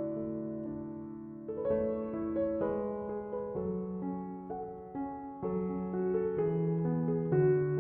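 Background music: slow, soft keyboard chords on piano or electric piano, changing about every half second to second.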